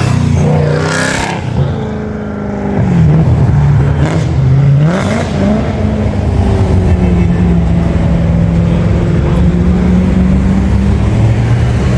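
BMW M3 E92's naturally aspirated V8 with a loud open exhaust, blipped several times in the first few seconds, each rev rising and falling, then settling into a steady idle.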